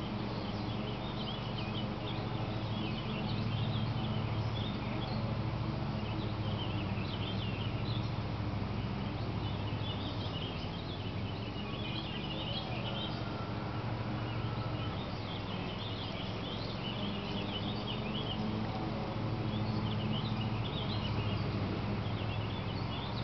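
Small birds chirping, many short high calls throughout, over a steady low hum.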